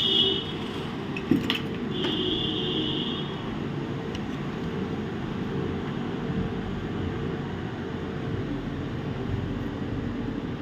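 Small clicks of handling and screw removal on a laptop, with two brief high-pitched whirs in the first few seconds, over a steady low hum.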